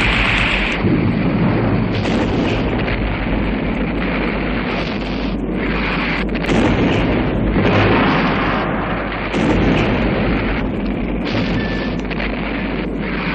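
Loud, continuous rumble of battle sound effects: artillery fire and shell explosions, with the sound changing abruptly several times.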